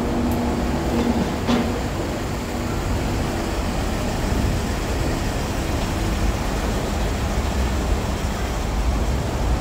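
Steady low rumble of road traffic, with a low hum over it in the first second and a half.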